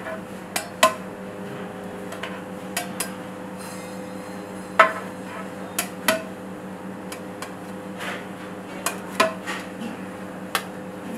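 Irregular metallic clinks and knocks as a plate scoops rice from a large aluminium biryani pot into a steel serving bowl, the loudest about halfway through, over a steady background hum.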